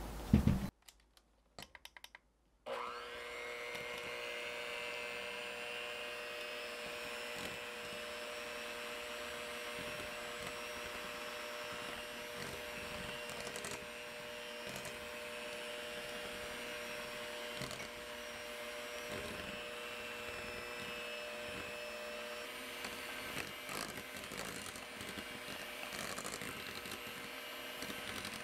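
Electric hand mixer starting up about two and a half seconds in and running steadily, with a steady hum, its wire beaters whipping a butter, coconut sugar and egg batter in a glass bowl.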